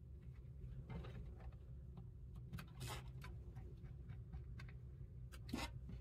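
Faint clicks and a few short scrapes of a small screwdriver working at the screws of an Asus Chromebox 5's ribbed plastic bottom panel, the loudest scrape about five and a half seconds in, over a low steady hum.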